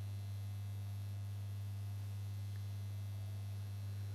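Steady low electrical mains hum, a constant buzz pitched around 100 Hz with a fainter overtone above it, unchanging throughout.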